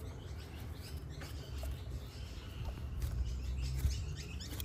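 Small flathead screwdriver scraping crusty dried coolant off the alloy thermostat housing's sealing face: a run of short, light scratches, cleaning the surface so the new thermostat and O-ring will seal.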